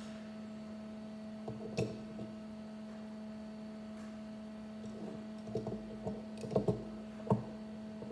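Plastic Lego pieces clicking as they are handled and pressed together: one sharp click about two seconds in, then a run of small clicks and knocks near the end, over a steady electrical hum.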